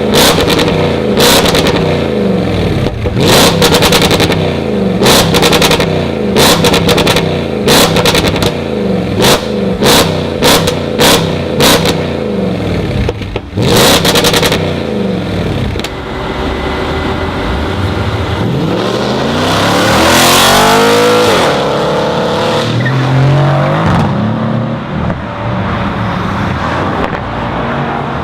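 Audi S5's 4.2-litre V8 with a decatted exhaust, revved hard again and again with sharp cracks and pops over the first half. Then it accelerates hard, the note rising to a peak about two-thirds of the way in and falling away.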